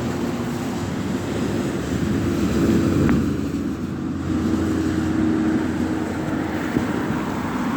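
Traffic passing on a rain-wet highway: tyre hiss swelling as vehicles go by, over a steady engine hum.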